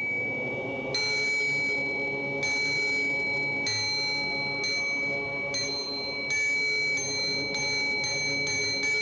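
Small high-pitched temple bell struck again and again, each strike ringing on over the last, with the strikes coming closer together near the end.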